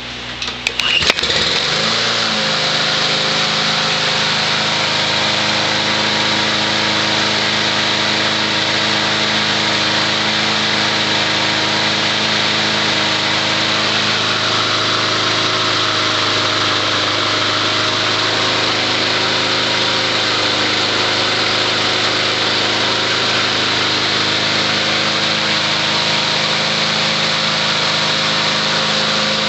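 Snapper walk-behind mower's petrol engine being started: a few clicks, then it catches about a second in, picks up speed over the next second and settles to run steadily.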